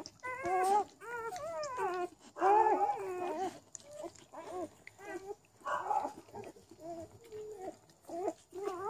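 Newborn Labradoodle puppies squeaking and crying: a string of short, wavering high-pitched cries, with a louder, longer cry about two and a half seconds in.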